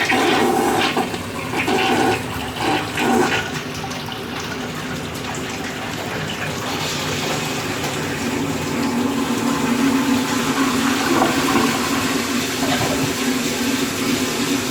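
A 1964 Universal Rundle wall-hung toilet flushing from a Briggs Conserver tank. Water gurgles and rushes in uneven bursts for the first few seconds as the bowl siphons out, then settles into a steady rush of the tank and bowl refilling that grows slowly louder.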